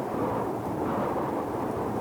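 Steady, deep, muffled noise of a sleep-noise track billed as deep ocean white noise, with most of its weight low and little hiss on top. It holds an even level, with no swells or breaking waves.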